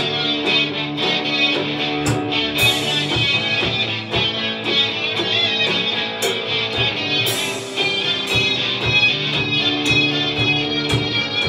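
Live instrumental 1960s-style rock: two electric guitars, one a Stratocaster-style guitar, playing over a Gretsch drum kit. A steady beat of drum hits runs under the guitars, with cymbal crashes about two and a half seconds in and again around seven seconds.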